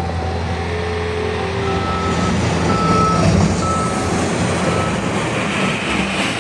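A Bobcat S76 skid steer loader's 74 HP turbo diesel running under way, with its backup alarm beeping about once a second from about two seconds in as the machine reverses.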